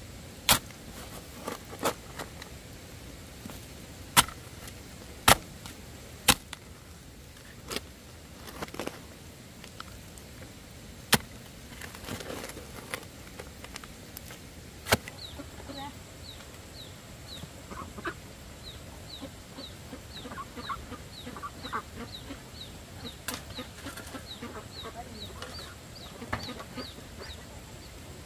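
Chickens clucking, with a run of short, high peeps about two a second from about halfway through. Several sharp, loud knocks in the first half, and one more later.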